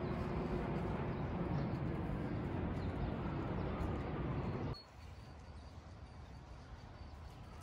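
Steady low outdoor noise without a clear tone that cuts off abruptly at an edit about five seconds in, giving way to quieter street ambience.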